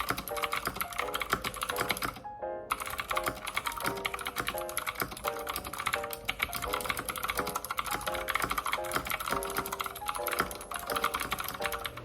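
Fast typing on an Ajazz K870T mechanical keyboard fitted with thick, matte dye-sub keycaps: a dense run of key clacks that pauses for about half a second a little over two seconds in, with background music.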